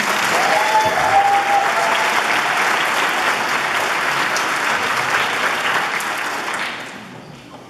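Audience applauding in a large hall, the clapping dying away about seven seconds in.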